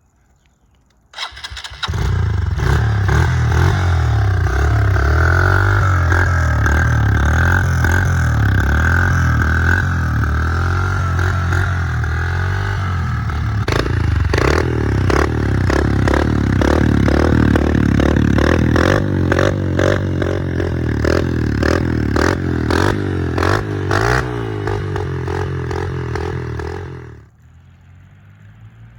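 Honda 125's single-cylinder four-stroke engine, fitted with an FMF Power Core 4 aftermarket exhaust, starting about two seconds in and running with its pitch rising and falling as it is revved. From about halfway it runs rougher with many sharp pops, and it is shut off suddenly near the end.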